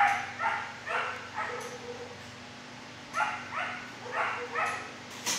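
Dog barking in short calls, two runs of about four barks each, with a sharp click just before the end.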